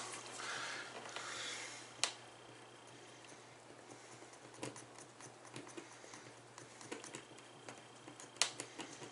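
Faint scraping and ticking of a thin stick stirring a metallic airbrush paint mix in a small plastic cup, with a sharper click about two seconds in and another couple of clicks near the end. A soft hiss runs under the first two seconds.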